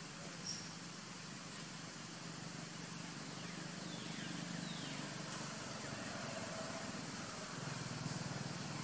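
Steady outdoor background noise: an even hiss over a low steady hum, with a short click about half a second in and a few faint falling chirps around the middle.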